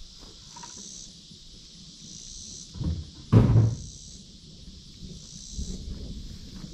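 Insects buzzing in a high chorus that swells and fades about every second and a half, with a sharp knock and a low thump about three seconds in.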